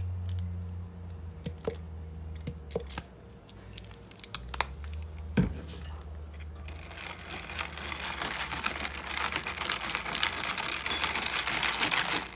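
A spoon works a bowl of colourful rice cereal in a glass bowl. First come scattered light clicks and knocks, then about halfway through a dense, crackly scraping and crunching as the cereal is stirred and mashed.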